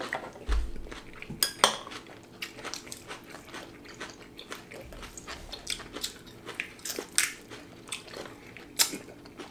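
People chewing food at a table, with scattered clicks of chopsticks against bowls and plates.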